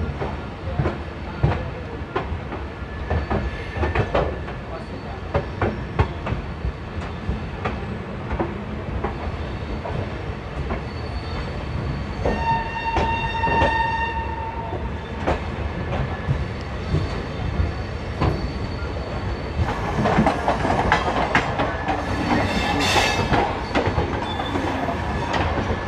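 Passenger train running at speed, heard from aboard: a steady rumble with the wheels clicking and knocking over rail joints. About halfway through, a train horn sounds once for about a second and a half, and the rattle grows louder near the end.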